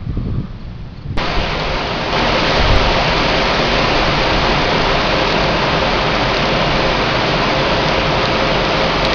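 Gusty wind rumbling on the microphone, then from about a second in a steady, loud hiss of heavy rain falling.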